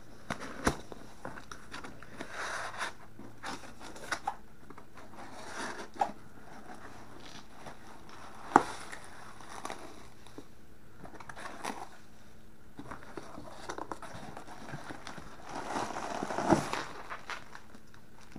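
Cardboard shipping box being unpacked by hand: cardboard flaps and inserts scraping and tearing, shredded-paper padding rustling, and plastic bubble wrap crinkling, with scattered sharp knocks of cardboard against the wooden table, the loudest about halfway through and again near the end.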